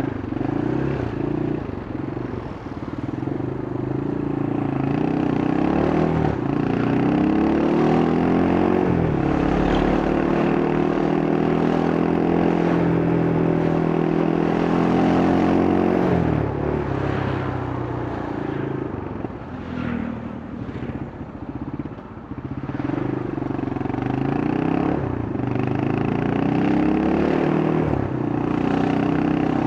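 Yamaha Scorpio's single-cylinder four-stroke engine and exhaust under way, pulling up through the revs and holding steady, then dropping off about halfway through before pulling up again, with wind and road noise beneath.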